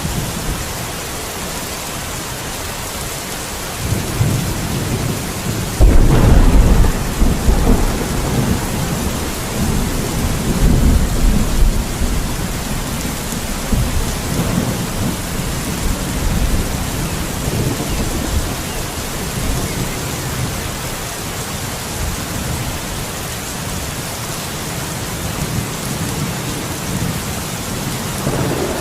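Steady heavy rain with thunder: a low rumble builds about four seconds in, then a loud clap about six seconds in rolls on and dies away over several seconds, and another peal begins at the very end.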